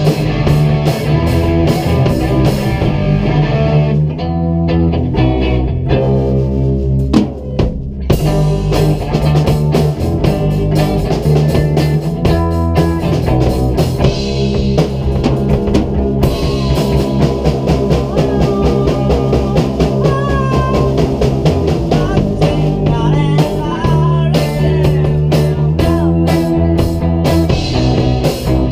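A rock band jamming live: drum kit, electric bass and electric guitar playing together. The drums and cymbals drop back about four seconds in and the full band comes back in near the eight-second mark; later the guitar bends notes.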